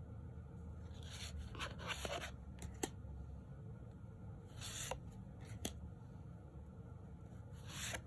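Tarot cards sliding against each other as single cards are moved from the front of the deck to the back: a few soft swishes a couple of seconds apart, with light clicks of the card stock.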